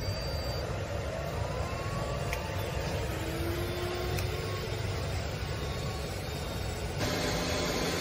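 Aiper robot vacuum cleaner running, a steady motor and suction-fan hum with a few faint sliding tones; the sound shifts abruptly about seven seconds in.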